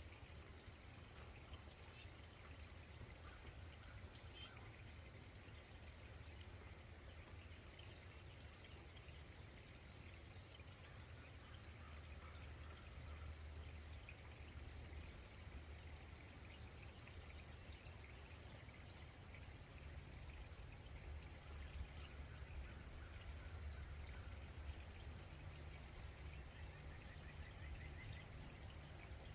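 Faint trickling of running water over a low steady rumble.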